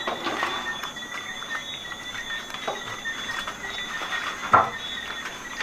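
Steady high-pitched chorus of night insects, with scattered small clicks and one sharper knock about four and a half seconds in.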